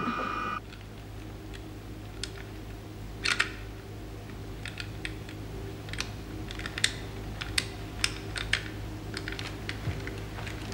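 Irregular clicking of keys and switches being worked on an electronic control console, over a steady low electrical hum. A high electronic tone cuts off about half a second in.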